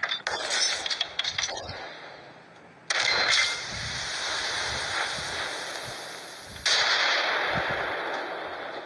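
Gunfire: a rapid burst of shots in the first second and a half, then two single heavy blasts about three and a half seconds apart, each trailing off slowly.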